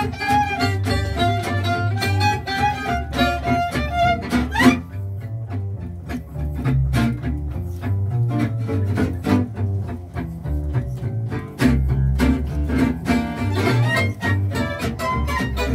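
Acoustic swing band playing an instrumental passage: a violin melody over strummed rhythm guitars and double bass. The violin slides up about five seconds in, then the guitars' steady strummed rhythm and the bass carry on largely alone for several seconds before the melody comes back near the end.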